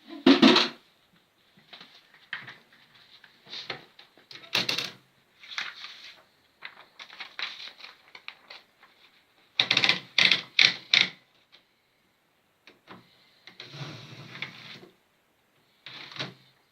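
AEG Mignon index typewriter being worked: irregular mechanical clacks with a loud one at the start, a quick run of four strikes about ten seconds in, and a longer rattle around fourteen seconds.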